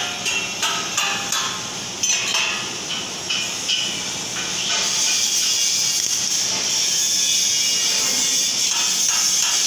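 Metal being struck about twice a second, each strike ringing, then from about five seconds in the steady hiss and crackle of a MIG welding arc on steel tube.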